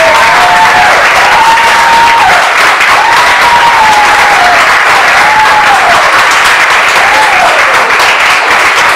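A crowd of guests applauding loudly and cheering, with several drawn-out whoops that rise and fall in pitch over the clapping.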